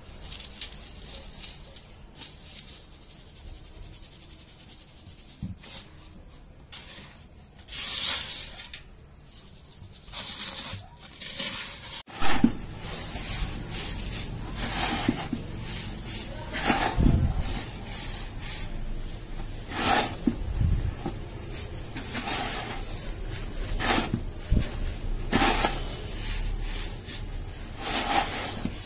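Dry, dusty sand being crumbled and rubbed between hands, giving a hissing, scraping sound in repeated strokes. The strokes are sparse and quiet for the first twelve seconds or so. After an abrupt break about twelve seconds in, the rubbing is louder, with a stroke every second or two.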